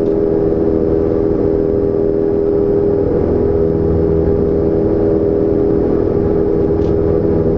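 Cessna 172's piston engine and propeller running steadily, heard inside the cabin.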